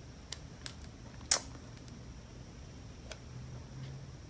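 A few light clicks and taps from metal tweezers and a paper sticker sheet being handled on a planner page, the sharpest about a second in.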